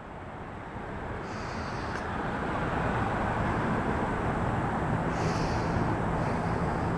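Road traffic noise: a steady rumble of passing vehicles that swells over the first few seconds and then holds.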